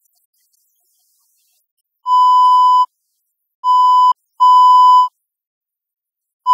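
Censor bleep: a steady 1 kHz beep tone, laid over the interview audio with the speech muted. After about two seconds of silence it sounds three times, each bleep under a second long, and a fourth starts just at the end.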